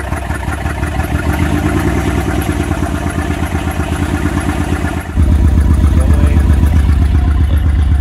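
2006 Honda Pilot's V6 engine running steadily in drive with the car on jack stands, driving the raised wheels. About five seconds in the sound suddenly gets louder, with a stronger low rumble.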